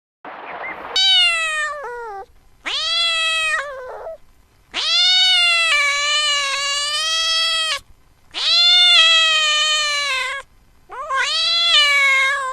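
Domestic cat meowing five times after a short breathy sound. Each call rises and then falls in pitch, and the two middle calls are long and drawn out.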